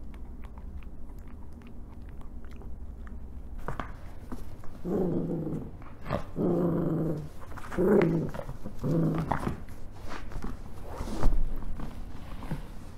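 Rat terrier growling during tug-of-war with a crocheted plush toy: four short, low growls about a second apart, after a few seconds of soft chewing clicks. A sharp knock comes about two-thirds of the way in.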